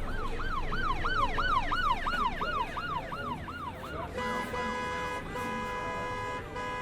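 A siren sound effect made at home: quick rising-and-falling wails, about three a second, then a steady horn-like tone held with a couple of short breaks.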